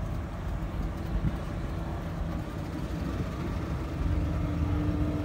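Speedboat engine running at speed as the boat passes, a steady hum that grows louder about four seconds in.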